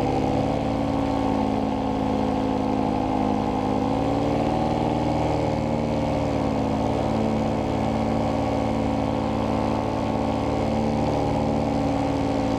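Paramotor engine and propeller running steadily at cruise power, with the engine speed wavering slightly about four to six seconds in.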